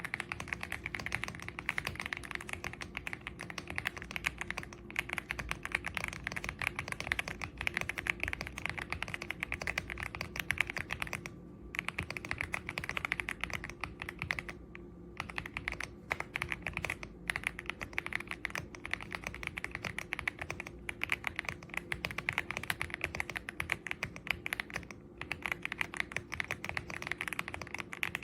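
Fast, continuous typing on an EPOMAKER x Aula F75 gasket-mounted 75% mechanical keyboard: a dense run of keystroke clicks, broken by a few short pauses.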